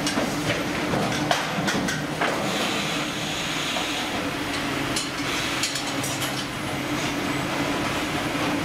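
Fish-processing line running: conveyor belts and machinery give a steady mechanical drone with a constant low hum, broken by scattered sharp clicks and clatters.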